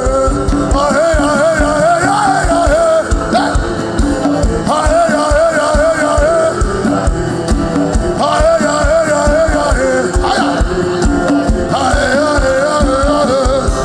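Live worship music: a singer chants a repeated melodic phrase, four times over, backed by a band with a fast, driving drum beat.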